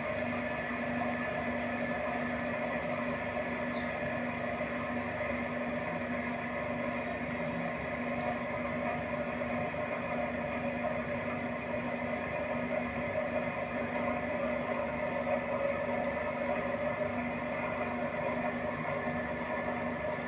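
Electric potter's wheel running at a steady speed, its motor giving an even hum with a few fixed tones while wet clay is thrown on it.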